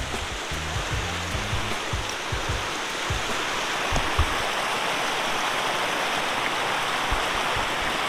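Steady rush of water from a waterfall and the stream pouring over rocks into a swimming pool, with a few brief knocks.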